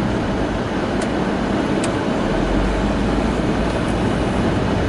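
Steady road and engine noise heard inside a moving car's cabin, with a low rumble that grows a little stronger about halfway through.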